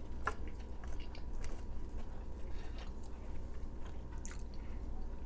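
Close-up chewing with scattered wet clicks and smacks of the mouth, over a low steady hum.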